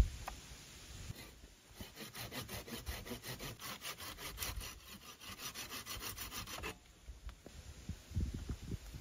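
A hand saw cutting wood in rapid, even back-and-forth strokes, which stop abruptly about two-thirds of the way through. A sharp knock comes at the very start, and low thumps come near the end.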